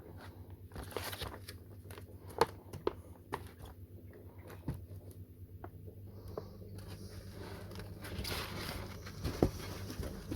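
Firecracker packets and packaging being handled: rustling with scattered light clicks and taps, and two sharper knocks, one about two and a half seconds in and one near the end.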